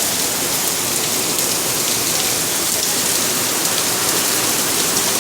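Rain falling steadily in a thunderstorm, a dense even hiss.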